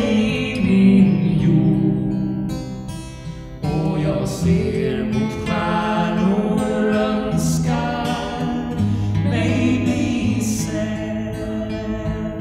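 Acoustic folk song (Swedish visa): a woman singing over a strummed acoustic guitar.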